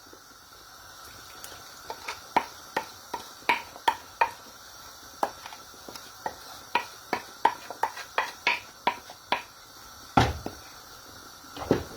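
A spoon knocking and scraping against a cooking pot in a run of sharp, irregular clicks, about two a second, as ogbono paste is spooned into the soup and stirred. A louder knock comes about ten seconds in.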